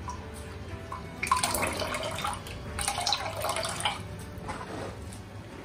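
Coconut milk dripping and trickling through a steel strainer into a steel pot as wet grated coconut pulp is squeezed by hand, in irregular bursts.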